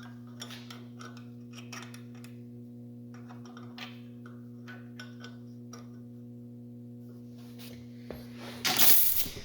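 Magnetic drill running with a steady hum while a number 7 drill bit cuts into a solid brass bar, giving irregular light clicks and ticks. Near the end the hum stops and a short, loud hiss follows.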